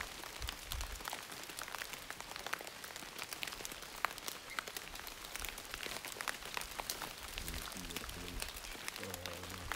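Rain falling on forest leaves: a dense, steady patter of many small drops.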